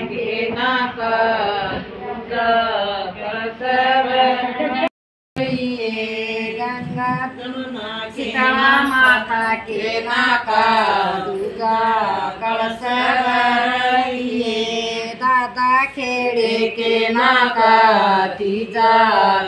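Women's voices singing a song in a chanting melody, with the sound cutting out completely for a moment about five seconds in.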